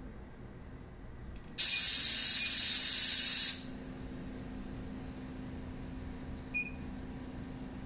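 KD-G030 compressed-air ionizer gun blowing a burst of ionized air at 0.2 MPa: a loud hiss starts about one and a half seconds in and cuts off sharply after about two seconds, while it discharges a charged test plate from about −1000 V to near zero. A short beep comes near the end.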